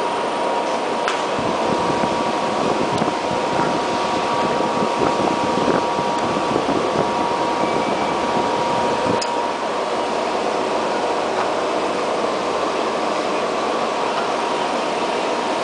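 Ascot R600 wood brushing (distressing) machine running: a steady mechanical whir of its motors and spinning brushes, with a thin high hum.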